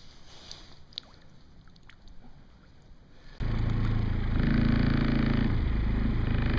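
Faint handling clicks, then, starting abruptly about three and a half seconds in, a small boat's motor running steadily at low speed.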